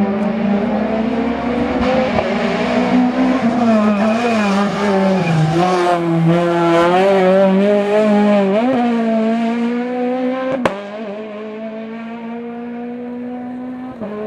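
Peugeot 208 R2 rally car's 1.6-litre four-cylinder engine revving hard through a hairpin, the note rising and falling with throttle blips and gear changes. After a sharp click near the end, the engine note holds steady and quieter.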